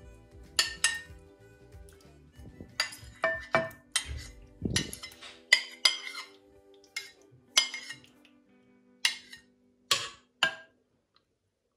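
A metal spoon clinking and scraping against a bowl as gelatin cubes are scooped out, in irregular clinks about twice a second that stop shortly before the end. Background music with steady held notes plays underneath.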